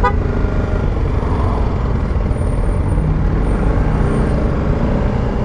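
BMW G310 GS single-cylinder motorcycle engine running at low speed in slow, dense traffic, under a steady low rumble of wind and road noise.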